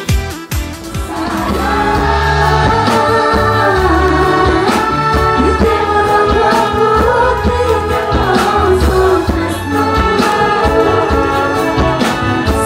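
Music with several voices singing long held notes over a heavy bass line; it swells in within the first second or two and then stays loud.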